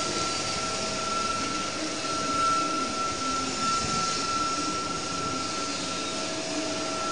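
Automatic screen printing and UV curing machine line running, with a steady rushing, fan-like noise and a steady high-pitched whine over it.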